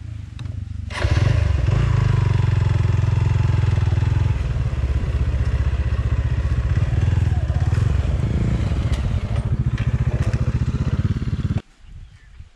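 Motorcycle engine running, a steady pulsing sound that comes in suddenly about a second in and cuts off abruptly near the end.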